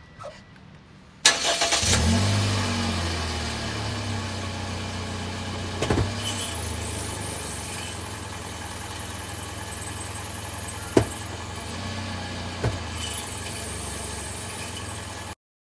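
A Toyota Porte's four-cylinder engine starting about a second in, revving briefly and then settling into a steady idle. Three single knocks sound about 6, 11 and 12.7 seconds in. A faint high buzz runs between the first two knocks; this is the kind of abnormal noise the owner is chasing, which a body shop suspected came from the gearbox and the dealer from a muffler gasket.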